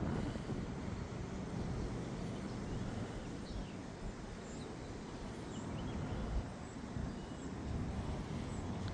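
Steady low rumbling background noise, with a few faint high chirps around the middle.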